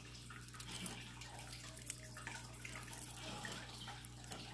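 Faint, scattered small clicks and rustles of costume jewelry being picked up and handled, over a steady low hum.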